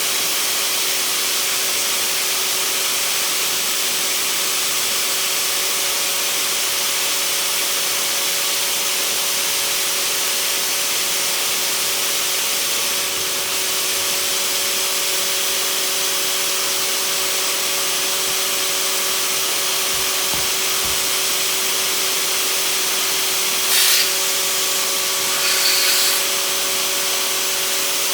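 Bravo 2000 electric inflation pump running steadily, pushing air through a Y connector and two hoses into the chambers of an inflatable slide: a constant rushing hiss with a steady hum. Twice near the end there is a brief, louder burst of hiss.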